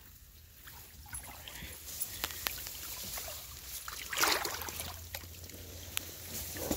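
Water sloshing and splashing with scattered sharp clicks, louder about four seconds in.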